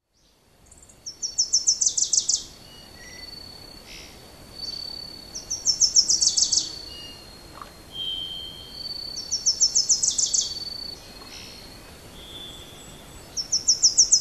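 Forest wildlife calling: a quick run of about ten high ringing notes, repeated four times about every four seconds, over a steady thin high whine.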